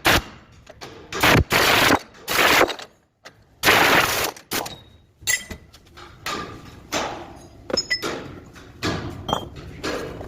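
Workshop tool noise during truck axle bearing work: a rapid series of loud bangs and short rattling bursts, most of them in the first four seconds, then lighter metal knocks.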